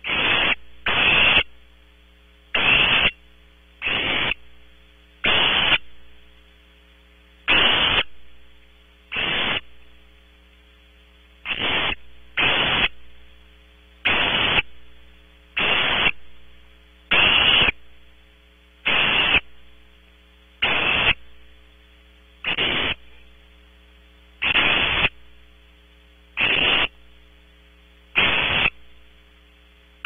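Barn owl owlets hissing over and over, one raspy, unpitched hiss about every second and a half, the begging calls that nestlings make. Under them runs a steady electrical hum.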